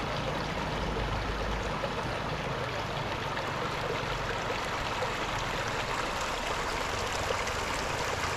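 Shallow river flowing and rippling over a bed of stones and pebbles, a steady rush of water.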